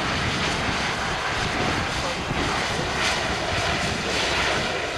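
Turboprop engines of a DHC-8-402 Q400, two Pratt & Whitney Canada PW150A turboprops, running steadily as the airliner rolls along the runway. Gusty wind buffets the microphone with a rumble that rises and falls underneath.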